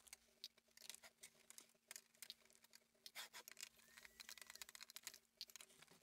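Faint, scattered clicks and light taps of plastic printer parts being handled and lifted off during disassembly, denser in the second half, over a faint steady low hum.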